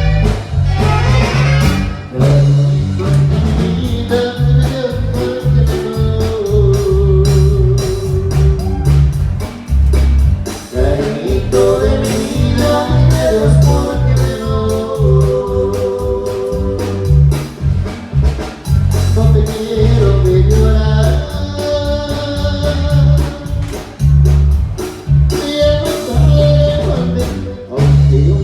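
Loud music with a singing voice over a heavy, pulsing bass beat.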